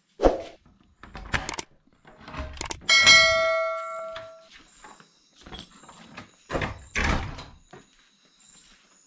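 Knocks and thuds of things being handled and moved, with one metal object struck about three seconds in that rings and fades over about a second and a half.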